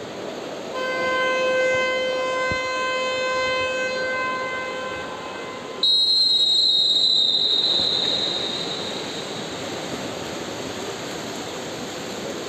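Start signals at an indoor swimming pool: a long steady horn-like tone of about five seconds, then, about a second later, a sudden shrill whistle blast that fades over about two seconds. The echoing din of the pool hall runs underneath.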